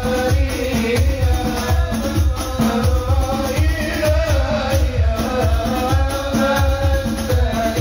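Hadrah ensemble of hand-struck rebana frame drums playing a steady rhythm of deep beats, about two a second, under a group of men singing an Arabic shalawat melody in unison.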